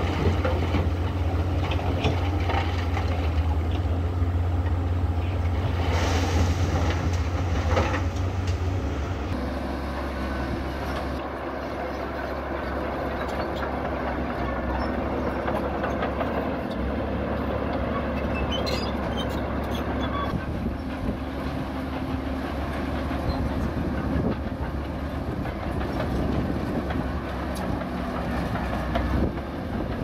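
Zoomlion ZD160S-3 crawler bulldozer's diesel engine running steadily under work, with the tracks clanking. The engine note changes about nine seconds in.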